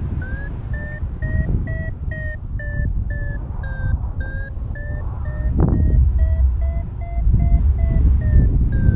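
Paragliding variometer beeping about three times a second, its pitch drifting up and down as it signals lift, over wind buffeting the microphone.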